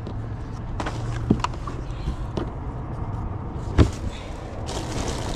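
Items being handled in a car's cargo area: a few sharp knocks and clicks as the hinged cargo floor panel is lifted, the loudest about four seconds in, with a short rustle near the end, over a steady low hum.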